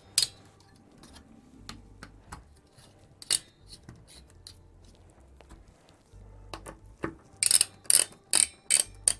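Sharp metallic clicks of a screwdriver turning the spring-loaded mounting screws of an AMD Wraith stock cooler: a couple of single clicks, then a quick run of about six clicks near the end.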